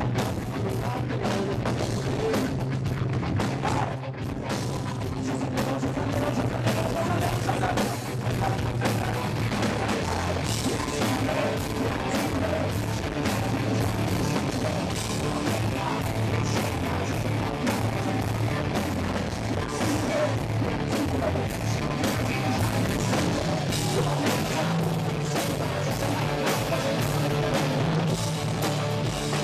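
Live rock band playing loudly: electric guitar and drum kit with a singer's vocals over them, steady and unbroken.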